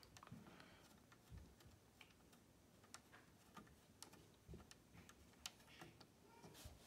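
Near silence with faint, irregular small clicks and taps of a screwdriver and retaining screw as an M.2 NVMe SSD is fastened to the motherboard.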